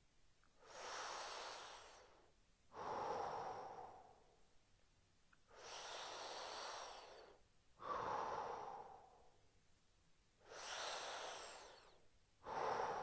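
A man's slow, deep breathing while he holds a stretch: about three full breaths in and out, each breath sound lasting nearly two seconds, a hissier breath alternating with a lower one.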